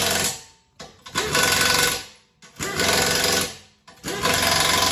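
Pneumatic wrench on an air hose running in about four bursts of roughly a second each, with short pauses between, rapidly rattling as it drives bolts on a tractor's loader mounting bracket.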